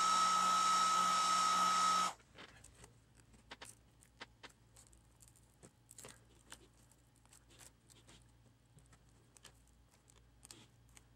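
Master Appliance Eco-Heat heat gun blowing with a steady whine, softening the touchscreen's adhesive, then switched off abruptly about two seconds in. After it stop, faint scattered clicks and ticks come from a hobby knife prying the cracked digitizer glass off its plastic bezel.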